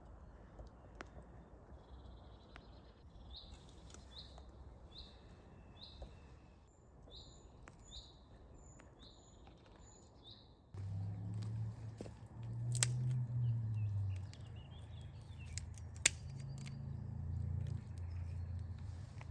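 A small songbird repeats a short high chirp about eight times, roughly one every second. About halfway through, the sound changes abruptly to a louder low rumble, broken by two sharp clicks.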